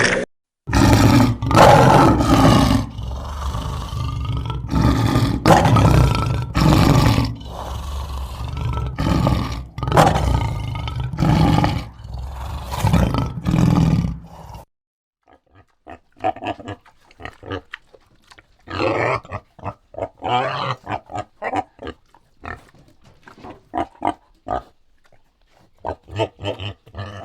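Animal calls: a run of loud, deep, repeated calls about once a second, then after about fifteen seconds a quieter stretch of short, choppy animal sounds.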